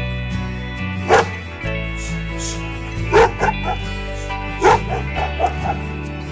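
A dog barking: one bark about a second in, then two quick runs of barks and yips about three and about five seconds in, over background music.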